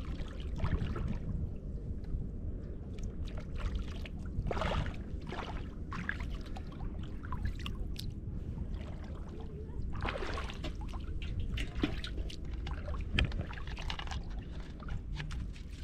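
Shallow river water sloshing and splashing as a person wades and pushes bamboo sticks into the riverbed, with several short splashes over a steady low rumble.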